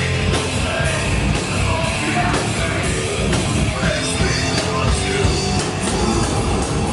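Live heavy metal band playing loud, with distorted guitars, bass and pounding drums, and a singer yelling over them, heard as a dense wall of sound through a club PA.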